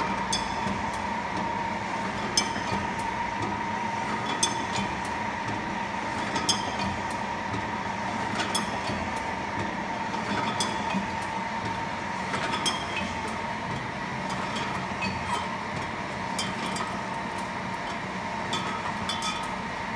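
Fimer RT12 monobloc wine-bottle filler and corker running with a steady hum and whine, while glass bottles clink against the star wheel and each other, a sharper clink about every two seconds.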